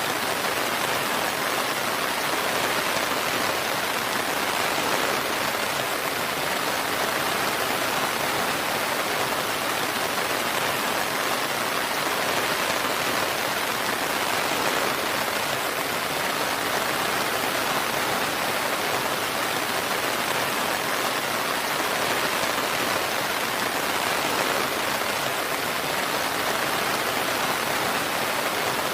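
Steady rainfall, an even hiss with no thunder and no single drops standing out.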